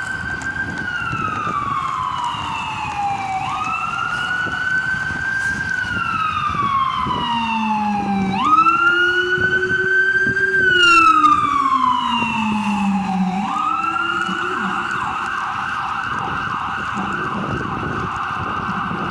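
Emergency vehicle siren wailing, each cycle rising quickly and falling slowly, repeating about every five seconds, then switching to a fast yelp about two-thirds of the way through. A second, lower siren tone glides alongside it in the middle.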